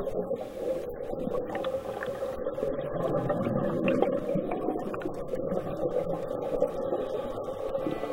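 Muffled underwater sound: a steady low hum with gurgling water, as heard through a diver's camera housing.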